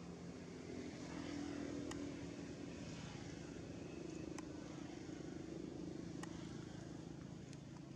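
A steady low engine hum, like a motor vehicle running, that swells slightly about a second in, with four faint sharp clicks spread through it.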